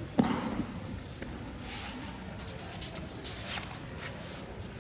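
A body hitting a tatami mat in a breakfall with one loud slap shortly after the start, followed by feet shuffling and cloth rustling on the mat.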